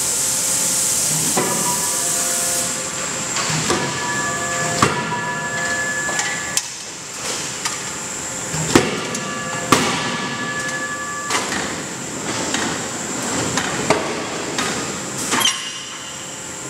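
Forging roll machine working a hot billet: a steady hiss for the first few seconds, then a series of sharp metallic clanks with ringing, about every one to two seconds, as the billet is passed through the rolls and handled with tongs.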